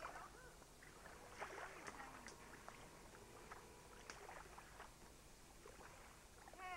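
Quiet waterside ambience with faint, scattered chirps and short whistled calls of small birds, a few a second at times, the clearest about a second and a half in and near the end.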